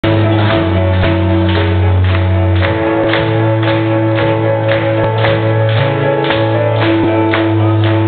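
A band playing loud live music through a club PA, with a steady beat of about two strikes a second over held low notes.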